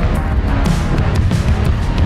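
Loud background music with a heavy, steady beat.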